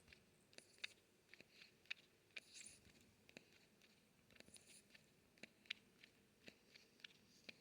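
Baby porcupine's mouth noises: many faint, irregular small clicks.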